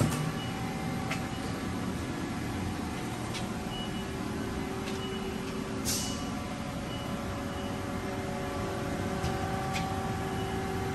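Steady hum of running machinery, with a few faint steady tones over it and several light clicks, the sharpest about six seconds in.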